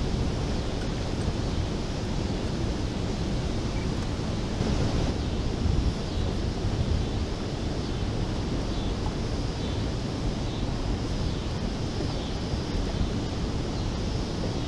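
Steady rush of turbulent water churning below a dam's open spillway gates, with wind buffeting the microphone.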